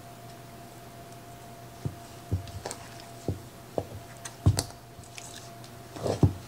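Hands squeezing and folding sticky biscuit dough in a ceramic bowl: soft squelches with irregular knocks of hand and dough against the bowl, the loudest about four and a half seconds in.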